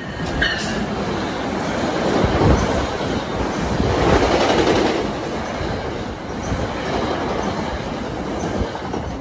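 NJ Transit ALP-45DP locomotive and its Comet passenger cars running past the platform: continuous noise of wheels on rails, loudest about two to five seconds in as the locomotive and first cars go by.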